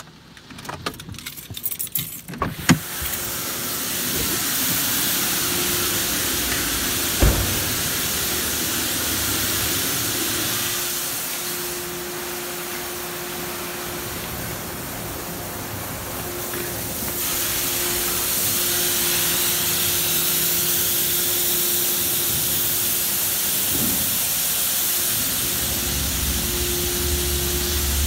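D&S Super 5000 car wash spraying a car with high-pressure water jets: a steady hiss of spray over a constant pump hum. Before it, a few scattered taps in the first couple of seconds, and one sharp knock about seven seconds in. The spray drops off somewhat for a stretch in the middle and then comes back stronger.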